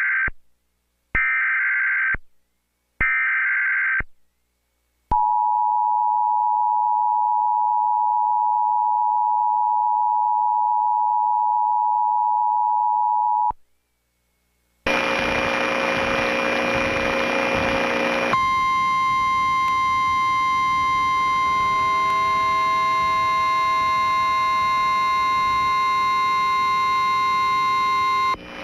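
Emergency Alert System alert opening: three short bursts of digital header data about a second apart, then the two-tone attention signal held steadily for about eight seconds before cutting off. After a second or so of silence, a harsh, noisy buzz with several steady tones starts. A higher steady tone stands out from about three seconds after that.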